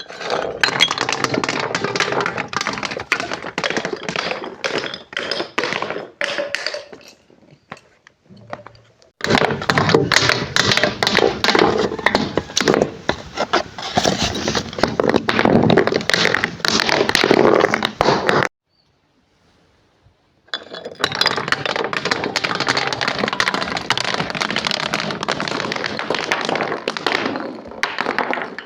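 Brittle, crunchy objects being crushed: dense crackling and cracking in three long stretches with short pauses between them.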